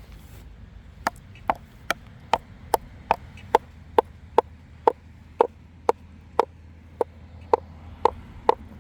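Hard clacks of rock on a large schist boulder, about seventeen knocks at roughly two a second, each with a short ring.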